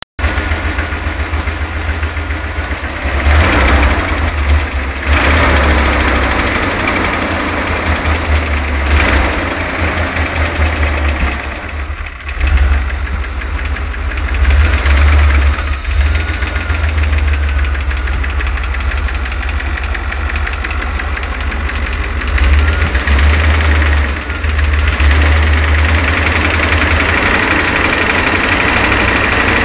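The 5.7-litre (350) throttle-body-injected V8 of a 1990 GMC Rally van running with a metallic knocking, rising and falling in loudness several times. The knock comes from two or more spun connecting-rod bearings, not the noisy lifter the owner first suspected.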